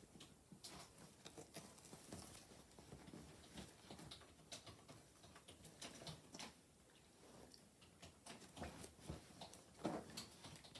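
Pomeranian digging and scratching at a padded fabric dog bed with its paws: faint, irregular scrapes and pats, with one louder scrape near the end.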